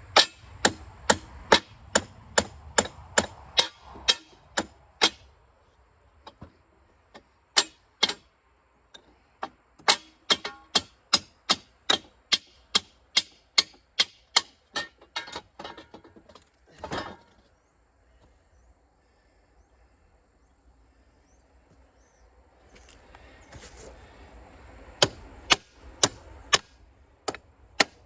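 Runs of sharp hammer blows, about three a second, some with a faint metallic ring, separated by pauses, with a longer noisy sound about 17 seconds in.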